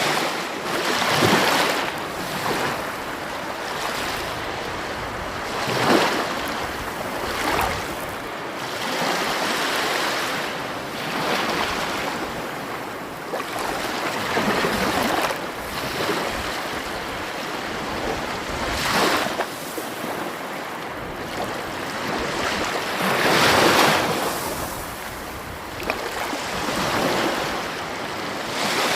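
Sea waves washing onto a shore, each wave swelling and falling away every few seconds over a steady hiss of surf.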